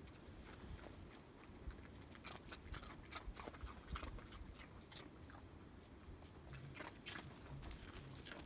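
Faint, irregular crunching and clicking of crusted snow as a leashed dog noses and steps about in it, over a low rumble.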